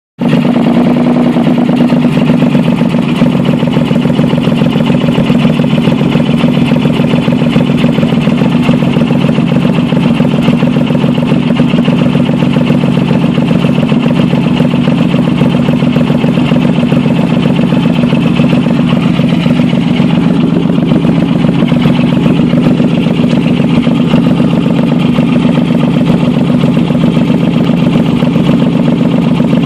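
Car engine idling steadily, with a rapid, even pulsing from the exhaust that comes from an exhaust leak.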